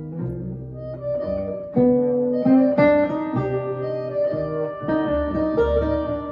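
Instrumental music with plucked-string notes over a bass line, played back through a single-ended 300B valve amplifier and a 1940s Philips 8-inch full-range speaker.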